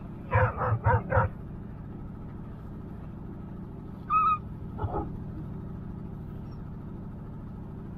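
Alaskan husky sled dogs in harness barking, impatient to run: four quick barks in the first second or so, then a high whine about four seconds in and a short bark just after. A steady low engine hum sits underneath.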